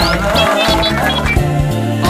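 Background music with a steady beat, bass and a melody.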